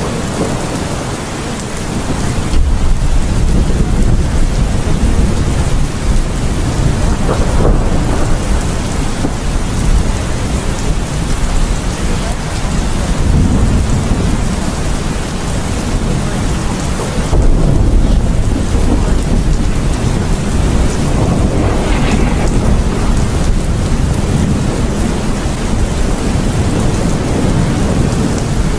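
Heavy rain with rolling thunder: a steady, dense hiss of rain, with deep rumbles of thunder swelling a few seconds in and again past the middle.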